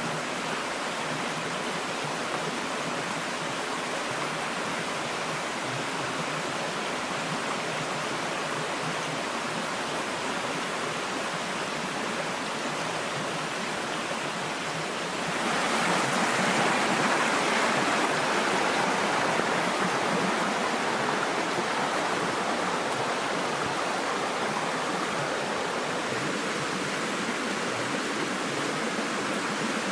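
Shallow rocky stream running over stones: a steady rush of water that gets louder about halfway through.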